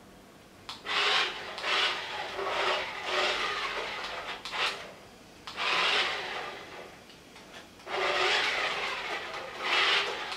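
A toy remote-control vehicle's small electric motor and plastic gears running in short spurts of about half a second to a second, with a rough, scraping sound.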